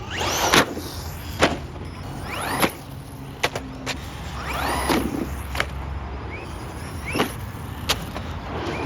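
Brushless RC car's electric motor whining up and falling away again in repeated bursts of throttle, with several sharp knocks between them.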